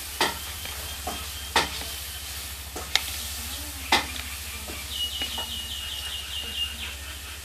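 A crisp ragi (finger millet) roti being torn and broken into small pieces by hand, with four sharp cracks as pieces snap off over a faint crackling. A steady low hum runs underneath.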